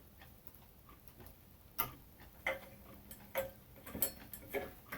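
Small irregular clicks and taps of plastic twist-on wire nuts being unscrewed and handled as ceiling-fan wires are disconnected, about half a dozen in all.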